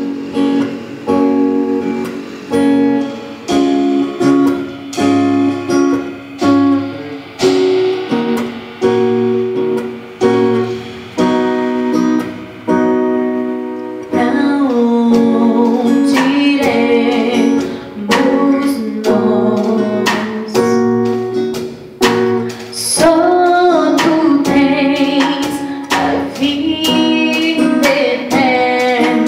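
Acoustic guitar strummed in a steady rhythm as the intro of a worship song; about halfway through, a woman starts singing over the guitar.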